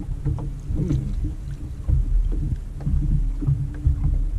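Low, uneven rumble of water slapping against a small inflatable boat's hull at sea, with a faint steady hum underneath.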